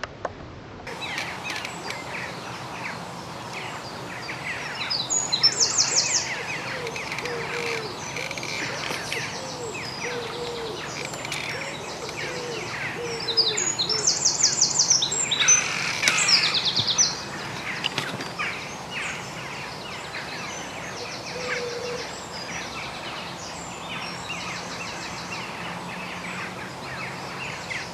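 Dawn chorus of songbirds: many overlapping chirps and songs. A loud, fast, high trill stands out about five seconds in and again for a few seconds around the middle.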